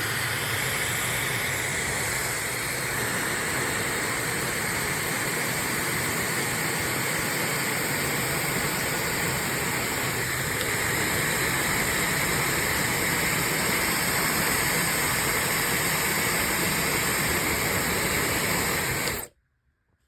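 Cosy Companions ZCY883 high-speed brushless hair dryer running: a steady rush of blown air with high, even tones above it, switched off suddenly about nineteen seconds in.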